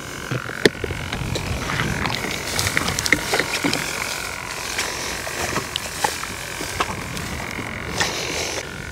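Footsteps and crackling rustle of grass as someone walks through tall grass, with many short crisp clicks throughout over a steady high drone.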